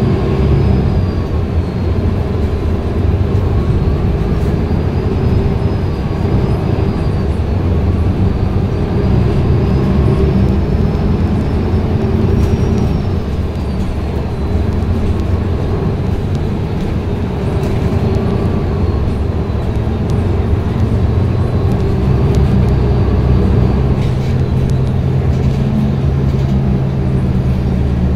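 Cabin sound of a MAN NG363F articulated bus under way: the diesel engine and Voith DIWA D864.5 automatic gearbox running over a steady low rumble of road and body noise. Faint whining tones rise and fall several times as the bus speeds up and slows, settling into a steadier hum towards the end.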